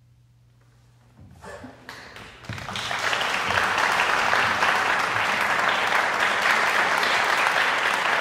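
Near silence with a faint low hum, then audience applause breaks out about a second in, a few scattered claps that swell within a couple of seconds into full, steady applause.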